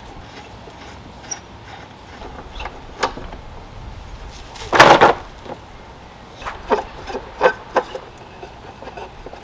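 Wooden table legs and tabletop knocking against a plastic workbench as the legs are unscrewed and handled: scattered light knocks, a louder clatter about halfway through, then a quick run of knocks.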